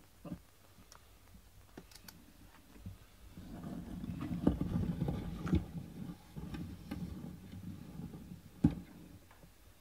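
Cat video audio played back through computer speakers: a low rumbling noise swells from about three seconds in and dies away before the end, with a few sharp clicks, the loudest just before the end.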